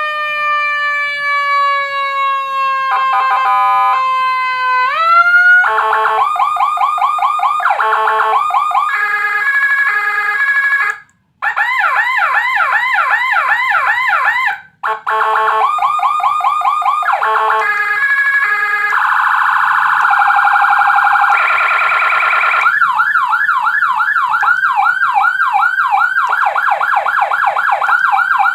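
Electronic police-escort siren module (AS 920, Whelen HHS 3200 tones) sounding through a TOA horn speaker and switching through its tones: a slow falling wail, then fast yelping and warbling patterns and a steady hi-lo stretch. It cuts out briefly twice between tones.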